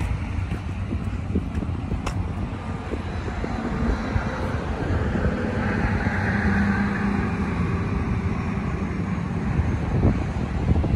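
Road traffic going by, with one vehicle passing louder about six to eight seconds in, and wind buffeting the microphone in gusts.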